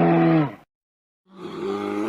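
A cow mooing: a pitched call that dips in pitch and ends about half a second in, then after a short silence a second, rougher call begins.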